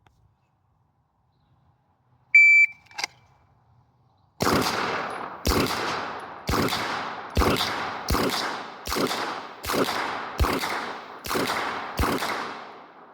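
A shot timer gives a short start beep, and about two seconds later ten gunshots are fired at an even pace, roughly one a second, each ringing out before the next.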